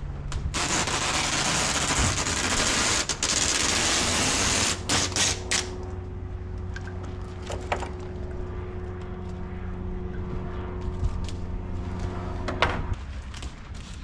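Packing tape being pulled off the roll in a long, loud, rattling rip, followed by a few short rips. After that a steady low hum runs until near the end, which closes with a sharp click.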